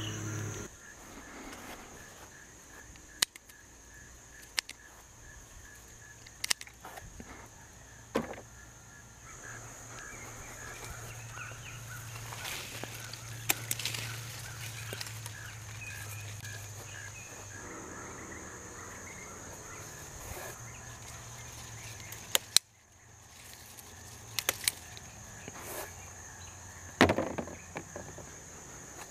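Outdoor garden ambience: a steady high insect drone, with a dozen or so short sharp clicks and snips scattered through it as garden shears cut peppers from the plants.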